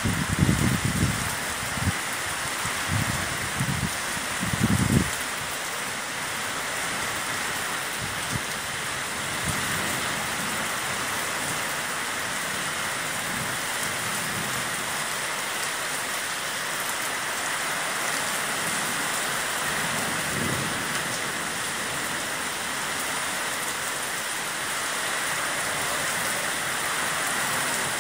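Heavy rain pouring steadily onto a street and nearby surfaces, a dense, even hiss. There are a few low thumps in the first five seconds.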